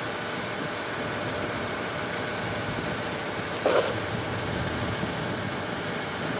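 Steady running noise of diesel site machinery, with a brief, sharper louder sound just past halfway.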